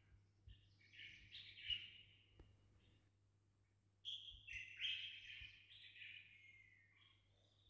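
Faint bird chirping and twittering in two bouts, the first about a second in and the second about four seconds in.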